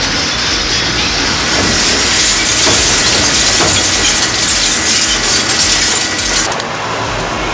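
Industrial shredder grinding scrap: a loud, dense grinding and clattering noise. It eases to a lower, different noise near the end.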